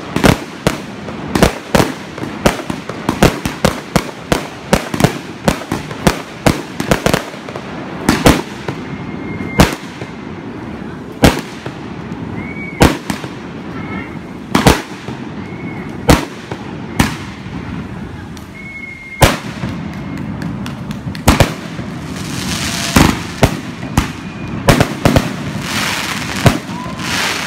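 Aerial fireworks bursting overhead. Sharp bangs come several a second at first, then thin out to scattered single bangs. Near the end there is a crackling shower of glittering stars.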